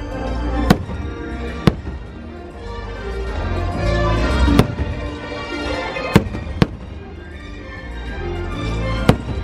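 Aerial fireworks bursting: about six sharp bangs at irregular intervals over the fireworks show's music.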